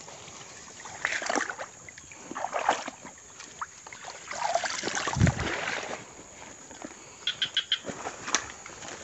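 Footsteps and the rustling of grass and leaves as someone walks through undergrowth, in uneven bursts, with a heavy thump about five seconds in.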